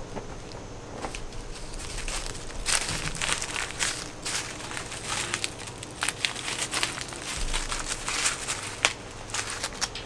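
Dry husks being peeled and torn off an ear of popcorn corn: an irregular run of crisp crinkles, rustles and tearing crackles.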